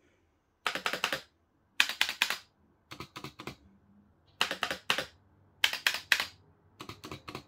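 Spacebars of Razer Huntsman gaming keyboards being pressed: six quick bursts of three or four clicky keystrokes each, about a second apart.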